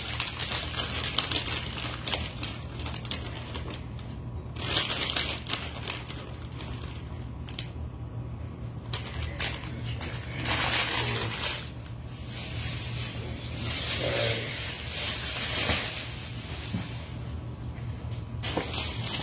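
Plastic food packaging being handled and opened, crinkling and rustling in several bursts over a steady low hum.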